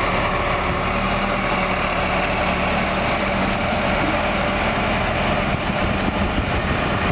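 Heavy vehicle engine idling steadily, an even drone with no change in pitch or level.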